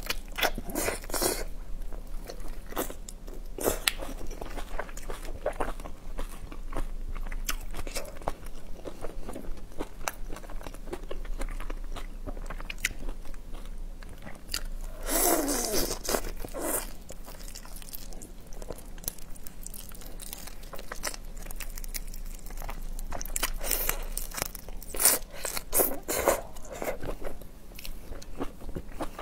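Close-up eating of whole raw shrimp in marinade: biting, chewing and crunching of the shells, with many small wet clicks. Louder bursts come about halfway through and again near the end.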